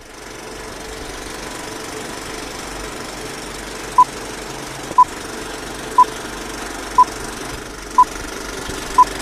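Old-film countdown leader sound effect: a steady film-projector whir with crackle, and from about four seconds in a short high beep once a second, six beeps in all.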